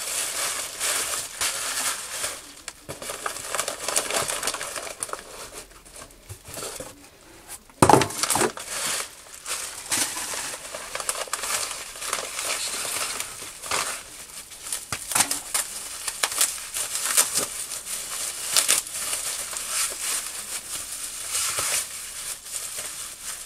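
Bubble wrap and paper packaging crinkling and rustling as parts are unwrapped by hand, with a single sharp knock about eight seconds in.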